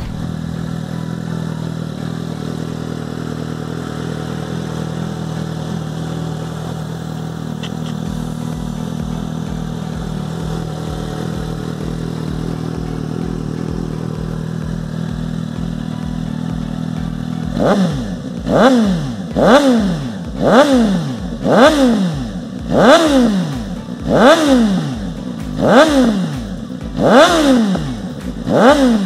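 Suzuki GSX-S750's inline-four engine idling steadily through a Hurricane GP aftermarket exhaust, then, from a little past the middle, revved in short quick blips about once a second, each rising and dropping back.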